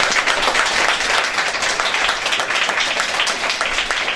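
Audience applauding: many hands clapping densely, easing a little toward the end.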